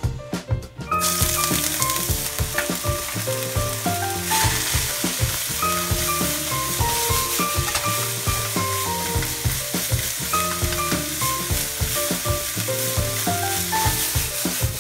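Julienned burdock root dropped into hot oil in a wok, starting to sizzle about a second in and frying steadily over high heat as it is stirred with chopsticks and tossed, with light clatter from the stirring.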